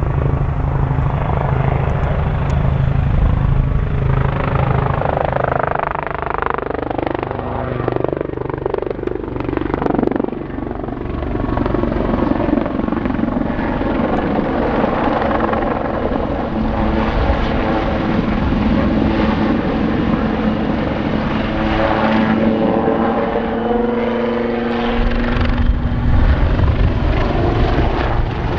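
AW159 Wildcat helicopter flying past: a steady beat of rotor blades under a turbine whine. The pitch slides as it sweeps by, once about a third of the way in and again near the end.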